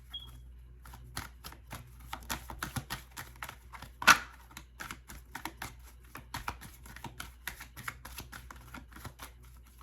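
Reading cards being handled and shuffled by hand: a run of quick, irregular clicks and snaps, with one louder snap about four seconds in.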